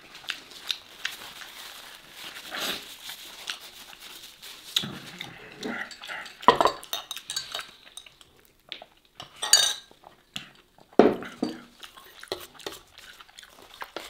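Metal fork scraping and clinking against a disposable aluminium foil food tray, in irregular clicks and scrapes with a few louder knocks.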